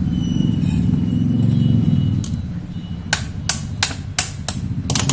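Hammer strikes on an e-rickshaw hub motor's top plate to knock it loose: a single knock about two seconds in, then about six sharp blows, roughly three a second, near the end. A steady low rumble runs under them.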